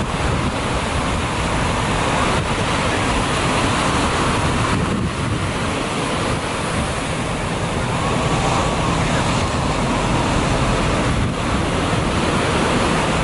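Ocean surf breaking and washing, a steady rush of whitewater, with wind rumbling on the microphone.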